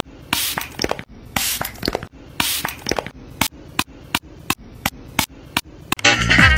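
Stuttering, glitch-style edited audio: bursts of hiss about once a second and a run of sharp clicks, with music starting near the end.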